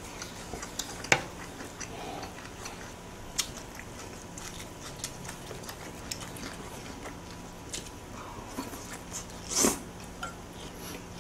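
Eating at a table: scattered small clicks of metal chopsticks against plates and bowls, with chewing, and one louder, longer clatter a little before the end.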